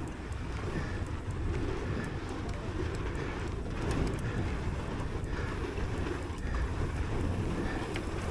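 Wind rushing over an action-camera microphone together with the tyre rumble of a mountain bike rolling along a trail, with a few faint clicks and rattles.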